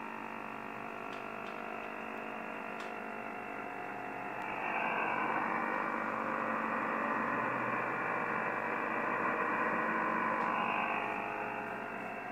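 Yaesu FT-1000MP Mark-V HF receiver in USB on 21.076 MHz, playing interference (QRM): many steady tones stacked over hiss. About four and a half seconds in, a louder rush of noise swells up, then fades back near the end. The uploader asks whether the QRM is military.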